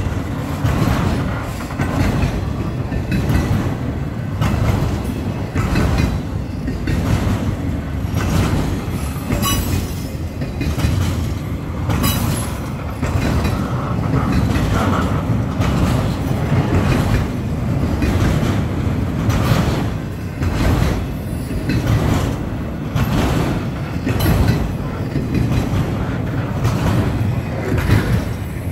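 Freight train cars rolling past at speed: a steady low rumble of wheels on rail with a regular clickety-clack as the wheels cross rail joints.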